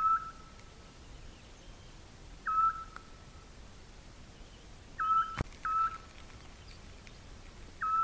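Eurasian scops owl calling: short whistled notes on one steady pitch, each opening with a quick downward slur, repeated about every two and a half seconds. Two notes come close together just past halfway, with a sharp click between them.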